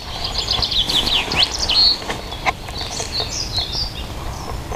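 Songbirds singing in the morning: a quick run of sharp chirps in the first two seconds, then a high warbling phrase about three seconds in.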